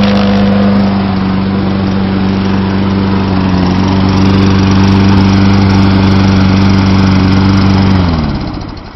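A Tecumseh 6.5 hp LEV120 single-cylinder mower engine on a Toro Recycler running steadily at speed, freshly started after a carburettor clean and a new primer bulb. About eight seconds in it shuts off and winds down.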